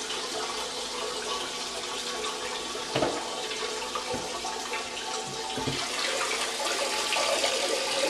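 Water running steadily, with a few soft knocks about three, four and five and a half seconds in.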